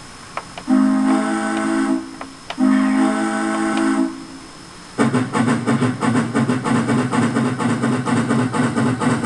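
Steam locomotive sound effects from a Soundtraxx Micro Tsunami TSU-750 DCC sound decoder, played through a speaker. A steam whistle sounds two long blasts, the standard signal to release brakes and proceed. About five seconds in, quick, steady exhaust chuffing starts as the locomotive gets under way.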